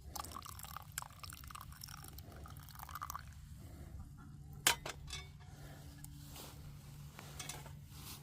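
Hot tea being poured and splashing into a cup for the first few seconds, then a sharp clink of the cup about halfway through, followed by a few lighter taps. A faint steady low hum runs underneath.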